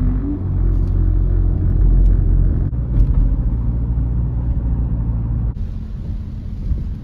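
Low, steady rumble of a car being driven, with a few faint clicks; the rumble drops abruptly about five and a half seconds in.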